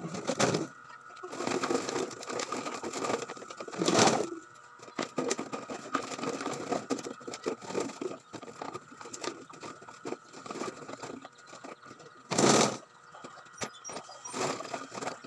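Plastic bottles, cups and other scrap rustling and clattering as they are handled and packed into a loaded cart, with two louder knocks: one about four seconds in and one near the end.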